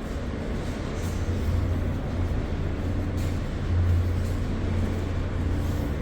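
Subway train rumbling through the station: a steady low hum under a wash of wheel and track noise.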